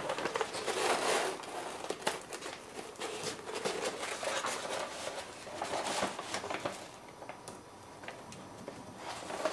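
A paper drawing rustling and crinkling as it is handled and lifted off, in irregular scratchy rustles that thin out over the last few seconds.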